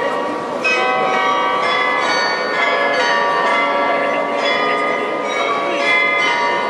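Glockenspiel bells of Munich's New Town Hall tower playing a tune, one note struck after another with the earlier notes ringing on and overlapping.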